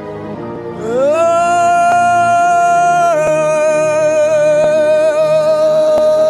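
Worship singing over a soft keyboard pad: a high voice glides up into a long held note, then steps down slightly into a second long note sung with vibrato.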